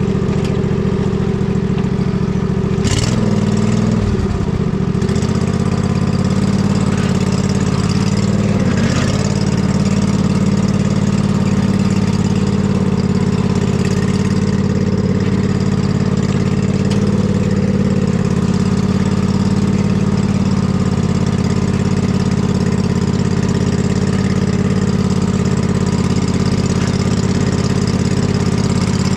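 Husqvarna riding mower's engine running steadily as it drives a muddy trail. Its pitch wavers briefly about three seconds in, with a knock, and again around nine seconds.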